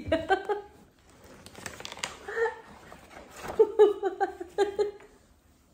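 A woman laughing in quick ha-ha pulses at the start and again near the end, with a paper gift bag rustling and crinkling in between as the gift is pulled out.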